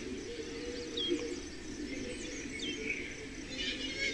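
Wild birds calling: a few short high chirps and quick downward-sliding whistles, over a steady lower background sound.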